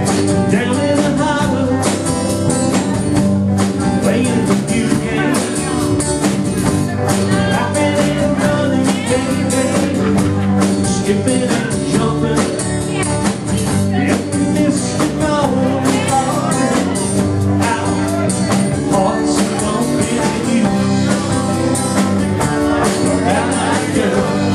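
Live band playing: electric guitars, bass guitar and drum kit, loud and steady throughout.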